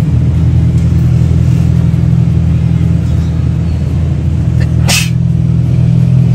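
Mazda RX-8's rotary engine running steadily at low revs as the car edges out. One short, sharp click comes about five seconds in.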